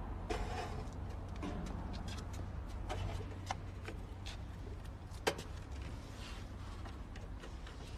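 Scattered small clicks and scrapes of wires and a screwdriver being worked into circuit-breaker terminals, one sharper click about five seconds in, over a steady low hum.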